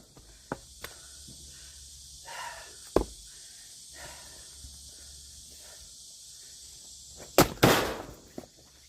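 Axe blows splitting firewood: two light knocks, then a sharp crack about three seconds in and a loud double crack near the end as the blade strikes and the wood splits.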